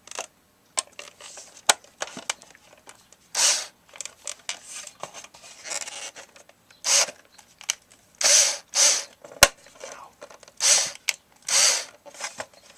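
A part being cut or scraped with a tool: a string of about eight short scraping strokes, with sharp clicks and knocks between them.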